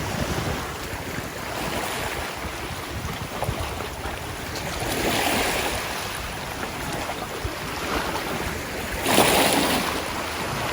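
Sea waves washing in against the shore, a steady rush of water with one surge about halfway and a louder one near the end.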